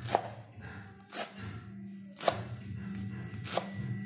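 Kitchen knife chopping spinach leaves on a cutting board: four separate chops, about one a second.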